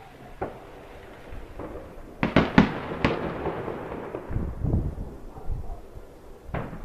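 Fireworks going off: a single bang, then a quick cluster of about four sharp bangs about two seconds in, followed by a few seconds of rolling noise and smaller pops, and another bang near the end.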